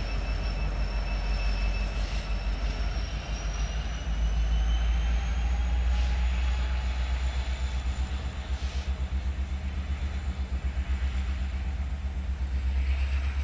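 An EMD SD70ACe diesel locomotive, running as the rear distributed-power unit, rumbles past behind a string of empty coal hoppers and draws away. A thin, high wheel squeal slowly rises in pitch over it.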